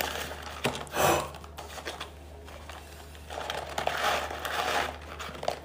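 Paper crinkling and cardboard rustling as McDonald's fries cartons are handled: a paper liner pulled from one carton, then fries tipped from a small carton into a larger one. A short louder rustle comes about a second in and a longer one from about three seconds in.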